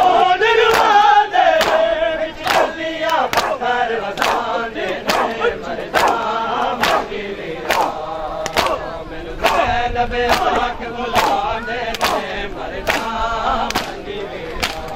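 Men's voices chanting a mourning nauha in unison, with the regular sharp slaps of matam (chest-beating) falling on the beat a little under two times a second.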